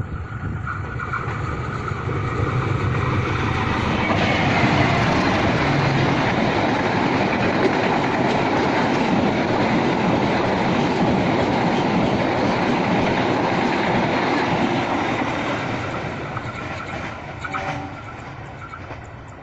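Passenger train passing by: a rolling rumble of wheels on the rails that builds over the first few seconds, holds loud for about ten seconds, then fades away.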